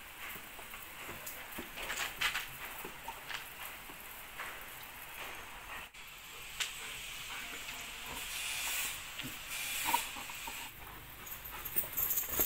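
Water hissing from a garden-hose spray nozzle and spattering onto a Rottweiler's coat and the artificial grass, with scattered small splashes and taps.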